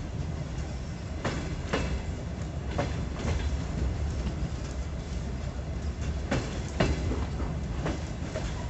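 DR1A diesel multiple unit rolling into a station, heard from the carriage window: a steady low rumble with its wheels clicking over rail joints in pairs, several times.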